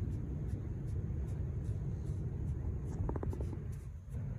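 Beach ambience: a steady low rumble of wind and sea. About three seconds in there is a brief faint pitched sound.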